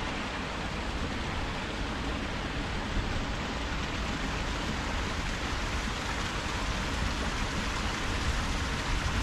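Steady, even rushing of flowing water.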